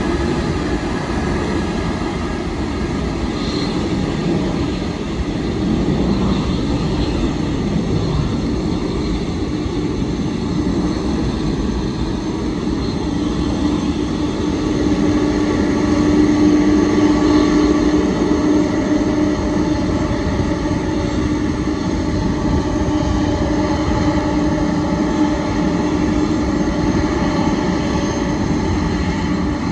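Boeing 747-400 Dreamlifter's four Pratt & Whitney PW4062 turbofan engines running at taxi power as the freighter rolls past, a steady jet rumble with a droning hum and a whine over it. It swells a little about halfway through.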